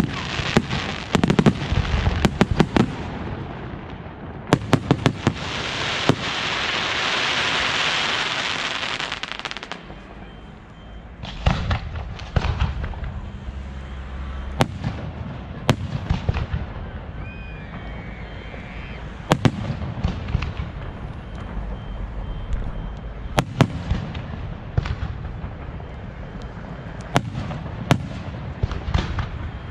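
Fireworks display: clusters of sharp bangs from bursting shells and firecrackers, with a loud hissing rush about five to ten seconds in, then scattered bangs and reports.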